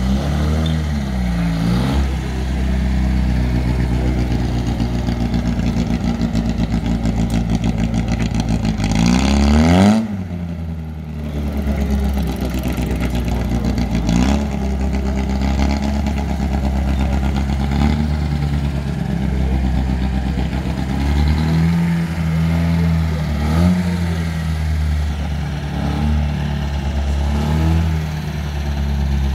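Vintage open sports car engines running and being blipped: a steady low engine note with several revs rising and falling, one climbing steeply to a peak about ten seconds in before it breaks off abruptly.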